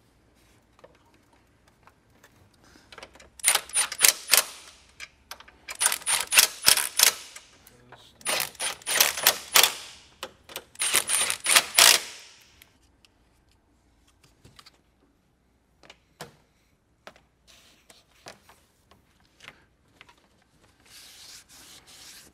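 Hand ratchet clicking in four quick bursts of rapid strokes, tightening fasteners on the intake, followed by a few faint light taps and a soft rustle near the end.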